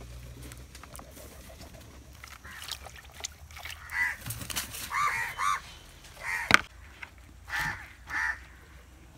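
A bird calling about six times in short, pitched calls over the second half, with a single sharp knock about six and a half seconds in, the loudest sound. Faint clicks and handling come before, as vegetables are washed by hand in a plastic bowl of water.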